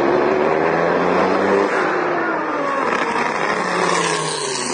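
Drag racing boat's engine running hard during a run, its pitch sliding down and then back up, over the rush of water and spray.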